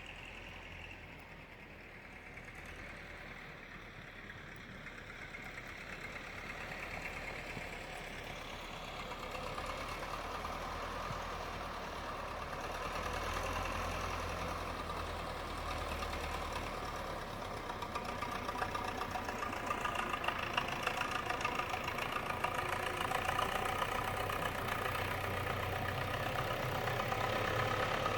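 A motor vehicle's engine running steadily, growing gradually louder as it draws closer.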